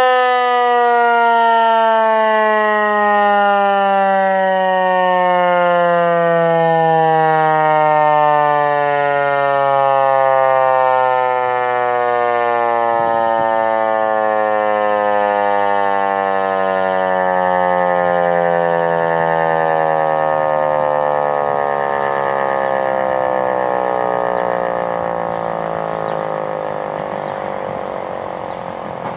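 Federal Signal 508 outdoor warning siren winding down: one long, steady fall in pitch with no rise, slowly fading toward the end. This is the rotor coasting down once the attack signal has ended.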